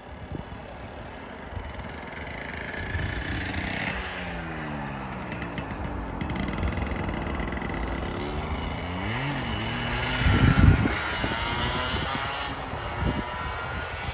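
Motor vehicles driving past, their engine pitch falling as each goes by, the loudest one about ten seconds in.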